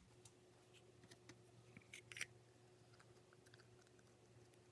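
Near silence with faint scattered clicks and taps of hands pressing Play-Doh into a plastic mold, the clearest pair about two seconds in, over a faint steady hum.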